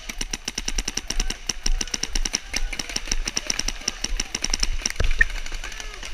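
Paintball marker firing fast strings of shots, about ten a second, with a louder single pop about five seconds in.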